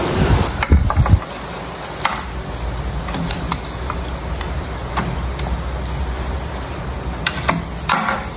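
A cat batting a small plastic ball toy hanging on a string: scattered light clicks and clinks as the ball knocks about against the exercise bike, with a few dull thumps in the first second.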